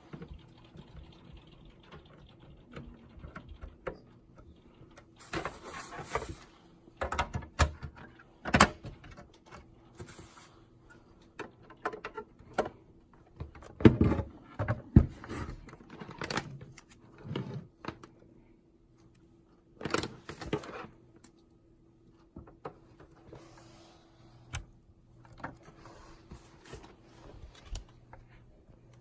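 Irregular clicks, knocks and short sliding scrapes of parts and casing being handled during a motherboard replacement on an OKPOS Optimus J19 point-of-sale terminal, with the loudest knocks about halfway through. A faint steady hum runs underneath.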